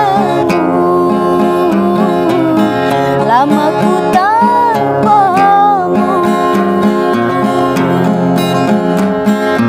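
A woman singing to a strummed acoustic guitar. Her voice rises into long held notes about four to six seconds in while the guitar keeps a steady chord rhythm.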